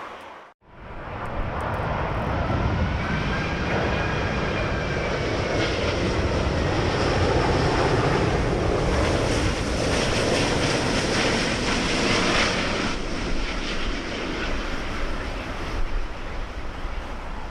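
Jet engines of an Airbus A380 airliner in flight, a steady heavy roar with a faint whine that bends slowly in pitch during the first few seconds.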